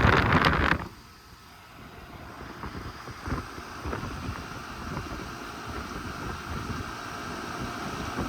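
Outdoor central air conditioner condenser running steadily, a hum from its compressor and fan. In the first second wind buffets the microphone loudly, then cuts off.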